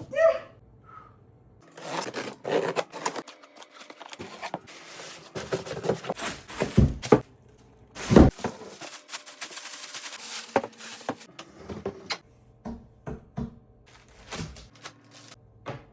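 Irregular knocks, clicks and scrapes of objects being handled, with a few louder thunks in the middle.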